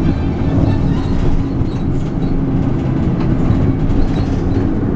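Steady engine and road rumble of a moving bus, heard from inside the cabin.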